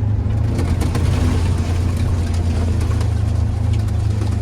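A vehicle's engine running steadily, a low drone with road and rumble noise over it.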